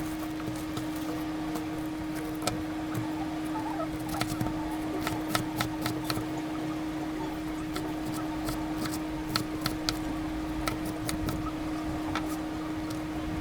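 Irregular sharp clicks and taps of kitchen prep work, over a steady hum.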